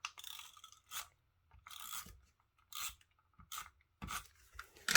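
Paper and card being handled at a craft table: a handful of short, crisp scraping strokes, roughly one a second.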